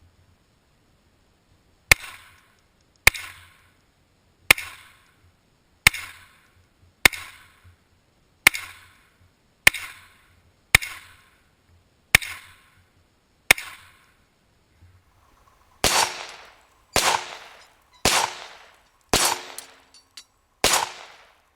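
Smith & Wesson Model 41 .22 semi-auto pistol firing single shots at a steady pace: ten sharp cracks about one to one and a half seconds apart, then after a brief pause five more that sound louder and fuller, each with a short ringing tail.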